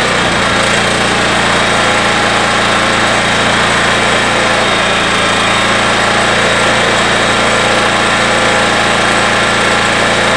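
Champion 8250-watt open-frame inverter generator engine running with the choke pushed fully in and no load plugged in, warming up. Its rough, pulsing beat smooths into a steady, even run right at the start.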